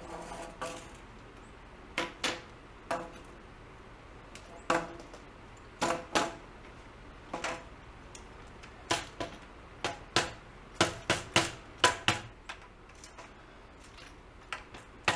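Hollow PVC pipes and elbow fittings clacking against each other and the floor as the crossed pipes are handled and folded on their centre bolt. Sharp, short knocks with a brief hollow ring, often in quick pairs, sparse at first and coming thick and fast about nine to twelve seconds in.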